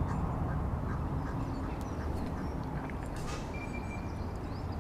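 Steady low outdoor rumble with one short, steady high beep about three and a half seconds in, a single tone from a carp angler's electronic bite alarm that signals a fish taking the bait.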